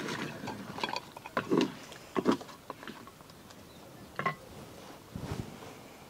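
A ladle scraping and knocking in a clay pot of country-chicken curry, with a scatter of light clicks and knocks from clay pot lids and a jar being handled.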